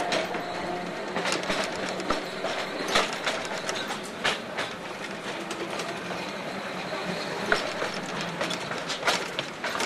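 Narrow-gauge electric tram of the Seaton Tramway running along its track, heard from on board: a steady rumble of wheels on rail with irregular clicks and knocks.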